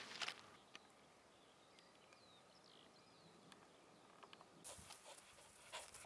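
Near silence outdoors. There is a short rustle of a bare foot pressing into grass at the start, faint bird chirps in the middle, and a few short rustling sounds near the end.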